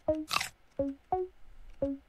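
Google Snake browser game sound effects: four short pitched bloops as the snake turns, and a brief crunch about a third of a second in as it eats an apple.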